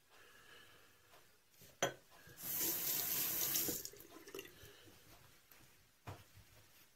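Bathroom sink tap run briefly, water flowing for about a second and a half during a wet shave. A sharp knock comes just before it and another about six seconds in.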